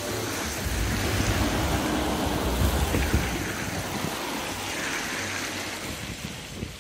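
Wind buffeting the microphone with a low, uneven rumble, over the steady rush of choppy seawater at a big high tide.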